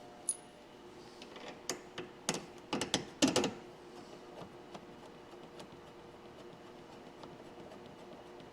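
Hand tools clicking and clinking against the metal tow-hook fittings while a nut is tightened: a string of sharp, irregular clicks in the first few seconds, then only a faint steady hum.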